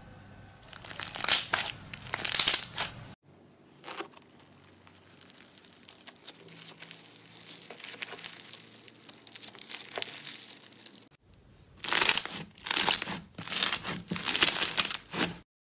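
Bead-filled slime worked by hand, crackling and crinkling. Clear slime full of clear beads is stretched in the first few seconds, then foam-bead slime is squeezed and pressed, quieter at first and then in several louder crackling squeezes near the end.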